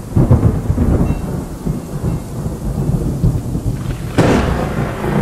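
Thunder rumbling over a hiss of rain, with a sharper thunderclap about four seconds in.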